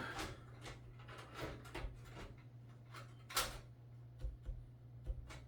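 Light clicks and knocks of a motherboard being handled and set down into a steel PC case, with the sharpest knock about three and a half seconds in, over a steady low hum.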